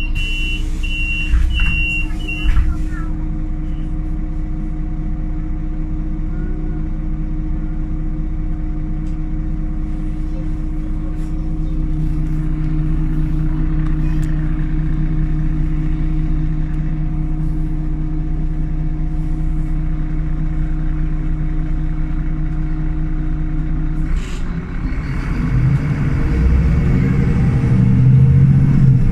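Solaris Urbino 18 articulated bus's Euro 3 diesel idling steadily, heard from inside the bus, then revving up about 24 seconds in as the bus pulls away on its Voith automatic gearbox, with rising engine pitch. At the start a run of repeated electronic beeps ends with two knocks.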